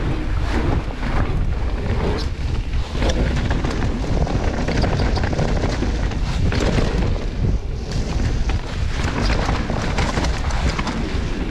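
Mountain bike running fast down a rough dirt trail: wind noise on the camera microphone with tyres rumbling and frequent knocks and rattles from the bike over roots and bumps.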